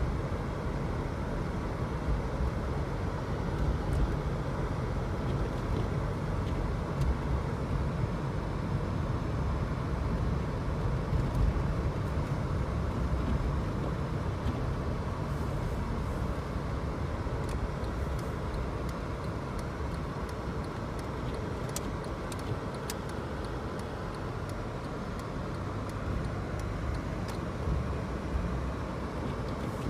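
A car driving on a snowy, slushy road: steady rumble of engine and tyres, with a few faint clicks about two-thirds of the way through.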